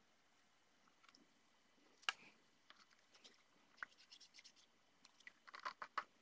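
Wet sandpaper being rinsed by hand in a metal bucket of water: faint scattered splashes, clicks and taps, with a sharp tap about two seconds in and a quick cluster near the end.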